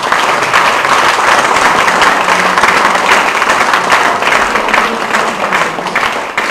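Audience applauding at the close of a talk: dense, steady clapping that begins to thin out near the end.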